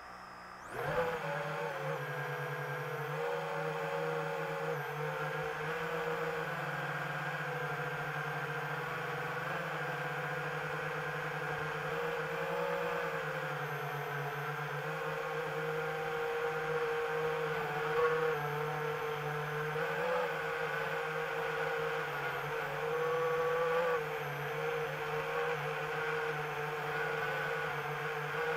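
Multirotor drone's electric motors and propellers spinning up about a second in, then a steady whirring hum whose pitch wavers slightly as the throttle changes.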